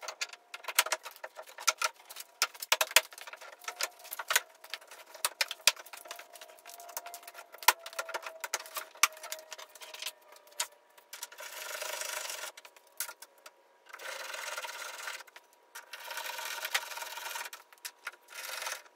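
Plastic grille of a 2017 Toyota Tundra being worked into place against the bumper and headlight housings: a quick run of clicks and knocks, then several stretches of plastic rubbing and scraping, each a second or two long.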